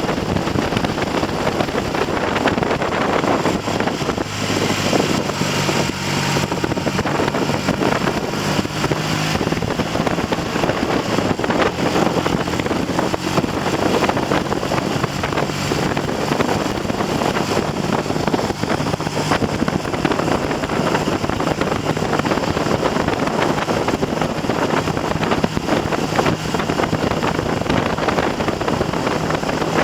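Heavy wind noise buffeting the microphone on a moving motorcycle, with the Triumph TR6's 650 cc parallel-twin engine faintly heard running underneath, its note shifting now and then. The engine is being run in after a top-end rebuild, at mid-range revs on light throttle.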